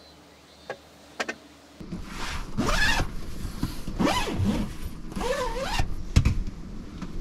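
Zipper on the fabric window panel of a kei camper's pop-up roof tent being pulled in several long strokes, after a couple of light clicks. The roof's window is being zipped closed, ready for the roof to be lowered before driving off.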